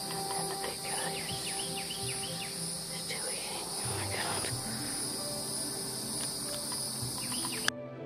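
Outdoor insect chorus trilling steadily in a high, evenly pulsing band, with scattered short bird chirps. It cuts off suddenly near the end.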